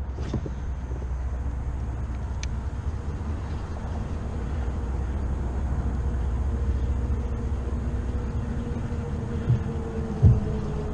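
Steady low rumble of traffic on the causeway bridge, with a faint tone that sinks slightly near the end, as of a vehicle passing. Two dull knocks come near the end, the second one louder.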